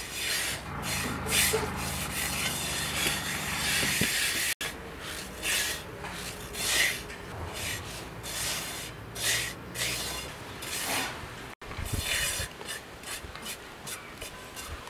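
A hand rubbing and scooping dry roasted-rice avalose powder mixed with sugar: repeated gritty rasping strokes, irregularly spaced.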